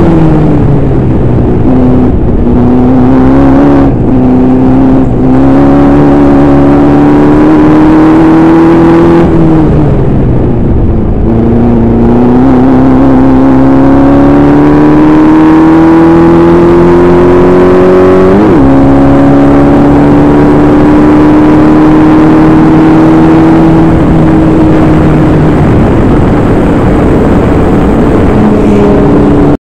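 Formula Vee's air-cooled Volkswagen flat-four engine heard onboard at racing speed: the pitch climbs steadily through the gears, falls sharply as the car slows for a corner about a third of the way in, climbs again with a quick blip of revs around two thirds of the way, then holds steady and eases lower near the end.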